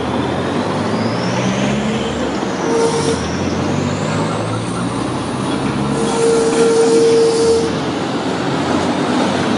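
Tatra-type tram passing close by: its motors whine in a high tone that glides up and down over the rumble of wheels on the rails. A steady squeal sounds briefly about three seconds in and again for longer past the middle.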